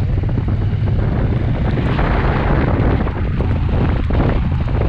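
Wind rumbling over the camera microphone of a motorcycle ridden slowly in the rain, over the bike's engine and the hiss of tyres on the wet road. The hiss swells for a moment about two seconds in.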